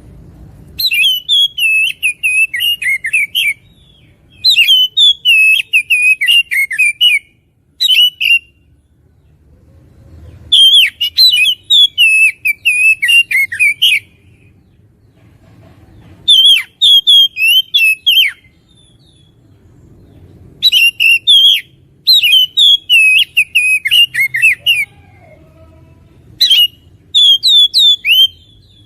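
Oriental magpie-robin (kacer) in vigorous full song: loud bursts of rapid, varied whistled notes, each phrase lasting one to three and a half seconds, with short pauses between phrases.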